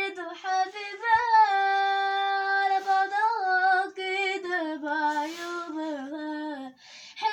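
A girl singing unaccompanied in Egyptian Arabic: a long held note about a second in, then a phrase that steps down in pitch and ends near the end.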